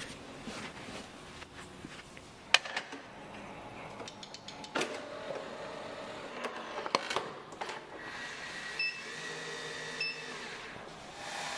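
Scattered clicks and knocks of cups and a capsule coffee machine being handled, then two short electronic beeps about a second apart as the buttons of an instant hot water dispenser are pressed, over a faint steady hum.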